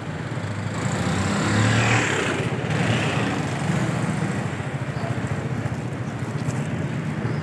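A motor engine running steadily close by, a low hum under a noisy street haze, a little louder about two to three seconds in.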